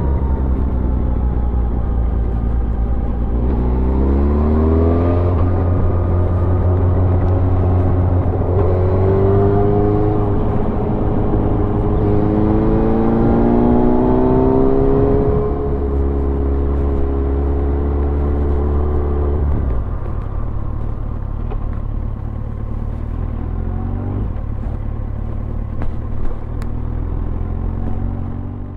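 Yamaha motorcycle engine under way, rising in pitch three times as it accelerates, then running steadily and easing off about two thirds in. Steady wind and road noise lie underneath.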